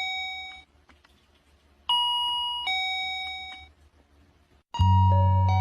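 Electronic shop-door entry chime playing a two-note descending ding-dong. The tail of one chime fades at the start, and a second full ding-dong comes about two seconds in. Near the end a chime-like tune with a bass line begins.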